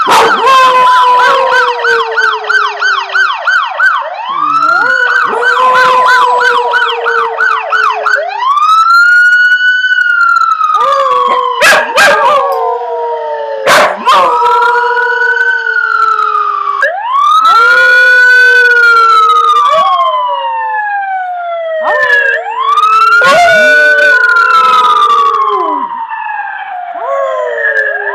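Emergency-vehicle siren in a fast yelp for about the first eight seconds, then a slow rising and falling wail, while a dog howls along with it. Two sharp clicks come about twelve and fourteen seconds in.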